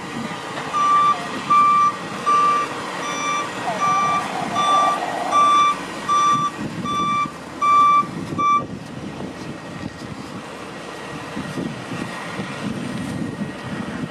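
Vehicle back-up alarm beeping as it reverses: about ten evenly spaced single-pitch beeps, a little over one a second, that stop about two-thirds of the way through, leaving a low engine rumble.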